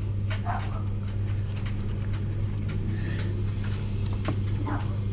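A dog making a few brief whines and noises over a steady low hum, with light clicks of small parts being handled.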